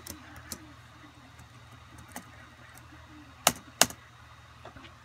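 Sharp clicks from a laptop booting a live CD: a few faint ticks, then two loud clicks about a third of a second apart about three and a half seconds in, over a low steady hum.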